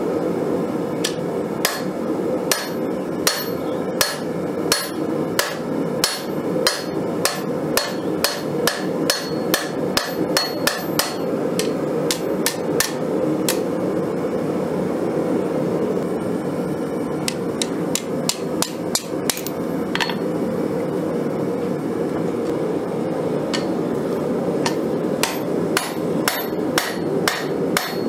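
Hand hammer striking a red-hot Nicholson file blade on a Cavalry anvil, each blow sharp with a high ring, about two a second. The blows thin out to a few in the middle and pick up again steadily near the end. A steady low roar runs underneath.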